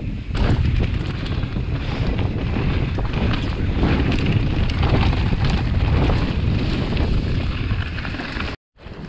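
Heavy wind buffeting the microphone at riding speed, over a mountain bike's tyres running down a dirt trail, with a constant clatter of the bike's parts and many small knocks from the ground. The sound cuts out for a split second near the end.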